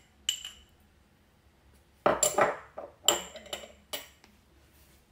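A metal spoon and a small glass bowl clinking: one light ringing clink about a third of a second in, then a cluster of louder knocks and clinks between about two and four seconds in as the bowl and spoon are set down on the countertop.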